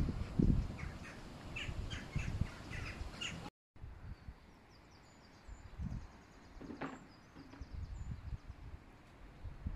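Birds chirping outdoors over a low rumble. The sound cuts out completely for a moment about three and a half seconds in, then comes back quieter with fainter chirps.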